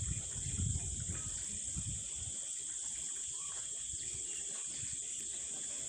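Insects chirring in a steady, continuous high-pitched drone, with some low rumbling in the first two seconds.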